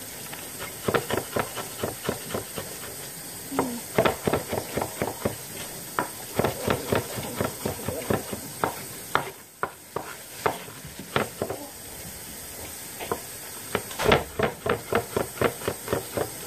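A cleaver chopping garlic on a wooden cutting board: quick, rhythmic knocks, about four a second, with a couple of brief pauses in the middle.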